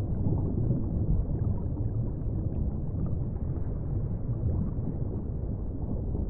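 Underwater ambience: a steady, muffled low rumble and wash of water heard below the surface, with faint bubbling.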